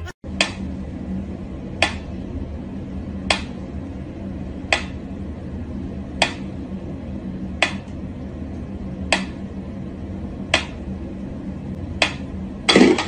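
Clockwork pendulum metronome ticking at a slow, even tempo, one sharp tick about every second and a half. A louder, brief sound comes near the end.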